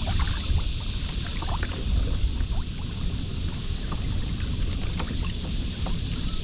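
Wind buffeting the microphone with a steady low rumble, while small ripples lap and splash against a drifting kayak's hull. A steady high hiss sits over it throughout.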